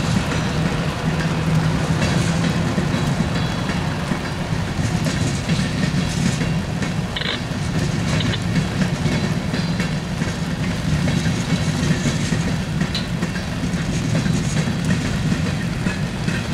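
Freight train of covered hopper cars rolling past with a steady rumble, the wheels clicking over the rail joints. A couple of brief high squeals come about seven and thirteen seconds in.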